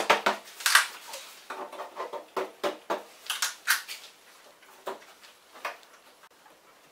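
Cardboard playhouse panels being slotted and pressed together by hand: a run of irregular taps, scrapes and short creaks, thinning out after about four seconds.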